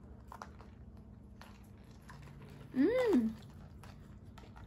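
Quiet wet chewing and slurping of long sour candy strands, with small clicks of the mouth. About three seconds in comes one short hum whose pitch rises and then falls, made with a full mouth.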